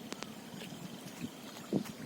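Floodwater rushing steadily, with wind buffeting the microphone, a couple of sharp clicks early on and a dull thump near the end.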